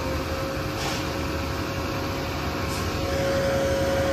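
Pressure washer running steadily: an even mechanical drone with a constant whine, a little louder from about three seconds in.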